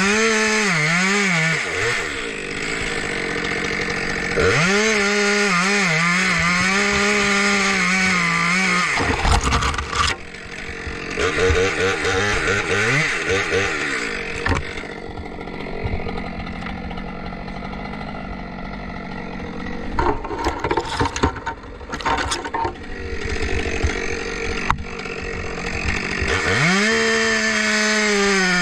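Two-stroke chainsaw revving up to full throttle and cutting, easing off in between; a few sharp knocks near the middle.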